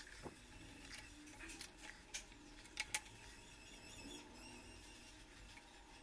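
Light clicks and taps of small tools and phone parts being handled on a repair bench: several in the first half, then only faint room tone.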